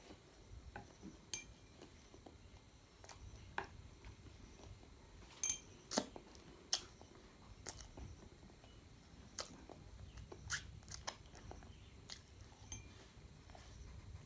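A child eating stir-fried noodles with wooden chopsticks: soft chewing and slurping, with scattered sharp clicks of the chopsticks against the plate, the loudest few around the middle.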